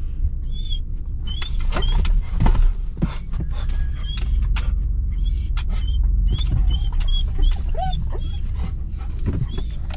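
Dog whining in the pickup's cab: a long string of short, high-pitched whimpers, about one or two a second, over the low steady rumble of the truck's engine.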